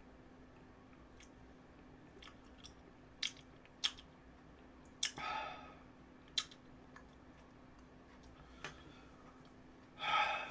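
A person eating fried dumplings: scattered wet chewing clicks and lip smacks. There is a short breathy burst about five seconds in and a louder one near the end.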